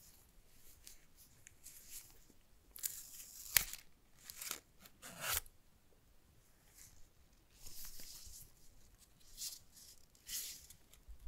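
Folded paper leaflet being handled and unfolded by gloved hands: a series of short paper rustles and scrapes, with a sharp tap about three and a half seconds in.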